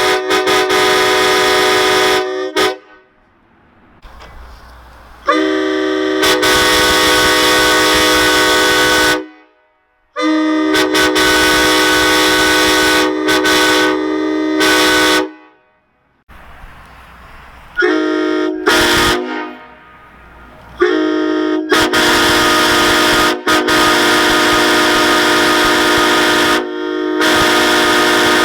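Vehicle horns blowing a series of long blasts, each a chord of several notes at once, lasting from about one to five seconds with short pauses between them.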